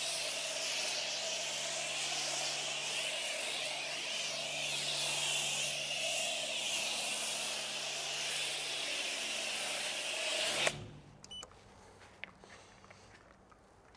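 Self-service car wash pressure wand spraying active foam: a steady spraying hiss with a low hum under it, cutting off suddenly about three-quarters of the way through.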